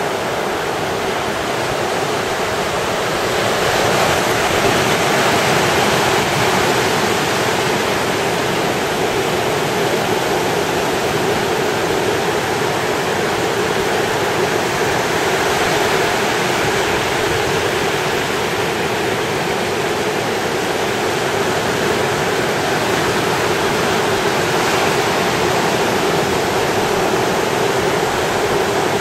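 Ocean surf breaking and washing on a beach, a continuous rushing noise that swells a little a few seconds in.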